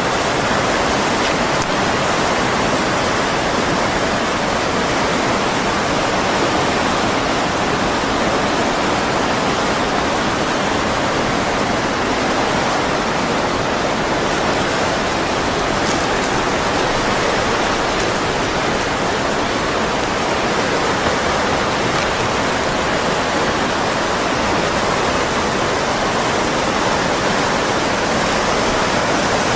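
Tsunami floodwater running: a loud, steady, unbroken rush of moving water.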